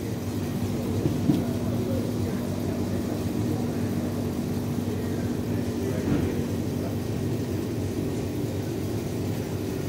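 Steady mechanical hum made of a few held tones, from shop cooling equipment such as refrigerated display cabinets or air conditioning.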